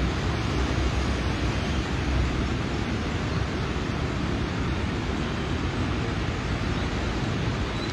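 Steady rushing noise of a swollen, muddy river in flood, with a low rumble underneath.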